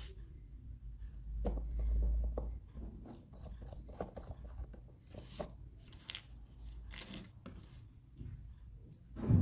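Hands handling the plastic parts of a small digital microscope on a bench: a run of small clicks, scrapes and rustles, with a louder knock near the end.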